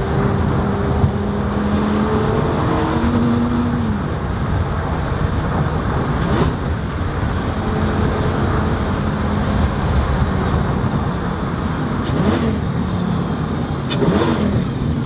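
Lamborghini Gallardo Superleggera's V10 engine heard from inside the cabin, cruising with a steady drone that rises a little and then drops about four seconds in. A few brief knocks come through later on.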